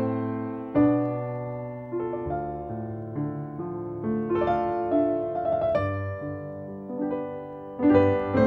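Background piano music: unhurried notes and chords, each struck and left to ring and fade before the next.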